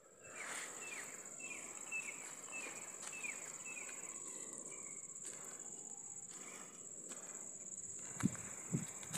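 Steady high-pitched insect drone, with a bird repeating a short falling chirp about twice a second during the first few seconds, and two low thumps near the end.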